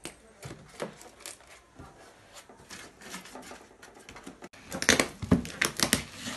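Plastic wrapping crinkling and cardboard packaging rustling as hands handle it, in scattered short crackles. After a brief break, the crackling turns denser and louder for about a second and a half near the end.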